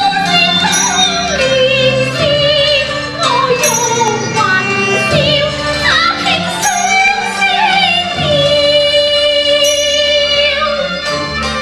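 Cantonese opera singing: one high voice sings a slow, sliding melody over the accompanying ensemble, with a long held note near the end.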